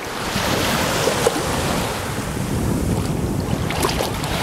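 Wind buffeting the microphone over sea water lapping and sloshing, with a few small splashes.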